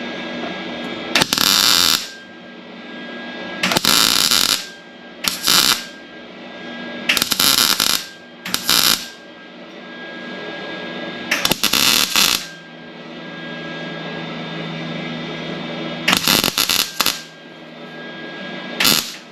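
Welder laying short stitch welds into sheet-metal body panels, eight brief bursts of crackling arc noise, each under about a second, with pauses between. This is the work of filling a hole, done in short bursts to limit heat in the thin panel, which here got too hot and burned through. A steady hum runs between the bursts.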